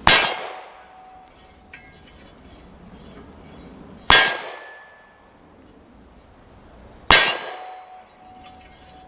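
Three 9 mm pistol shots a few seconds apart, each striking a steel gong that clangs and rings on after the hit; the second hit rings at a higher pitch than the other two.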